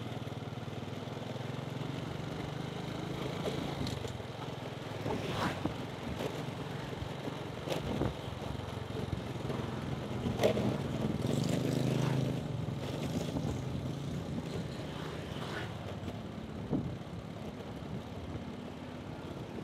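Motorcycle engine running steadily while riding through street traffic, swelling louder for a moment about halfway through, with a few short sharp knocks and clicks.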